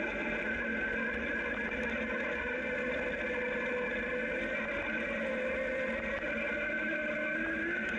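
Zero DSR electric motorcycle underway on a gravel road: a steady electric-drive whine made of several tones that waver slightly in pitch, over the rush of tyres on gravel.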